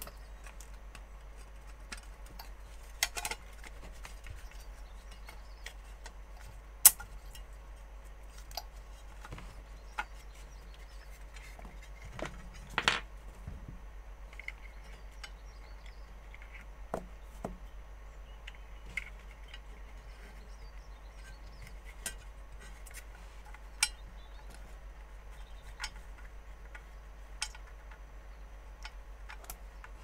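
Scattered small clicks, taps and knocks of a plastic control-box faceplate, circuit board and microswitches being handled and fitted back together, the sharpest about 7 and 13 seconds in, over a steady low hum.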